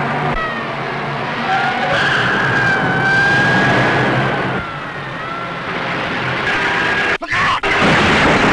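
A car engine running as the car is driven hard, with long high tyre squeals gliding up and down over it, on an early-1930s film soundtrack. The sound cuts out twice briefly near the end.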